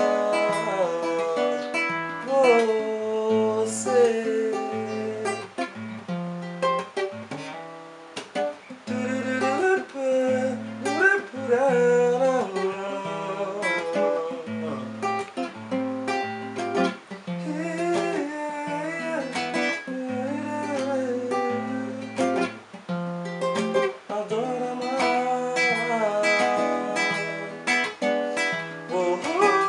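Music: an instrumental passage of a song, led by acoustic guitar, with a stepping bass line under it.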